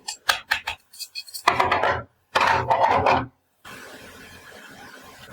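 Toy food pieces being handled and set down: a run of sharp clicks and taps, then two longer rustling, scraping bursts, one about a second and a half in and one about two and a half seconds in.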